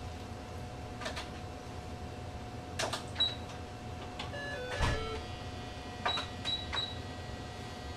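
Ultrasound machine console being operated to take measurements: sharp key and button clicks, several followed by a short high beep, and a few brief electronic tones of different pitches about halfway through, over a faint steady tone.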